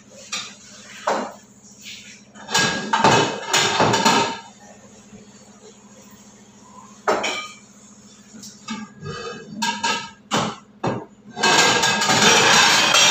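Ceramic cups, mugs and plates clinking and knocking as they are lifted and set down on wooden cabinet shelves, in scattered single knocks and short bursts of clatter. Near the end a louder continuous sound comes in.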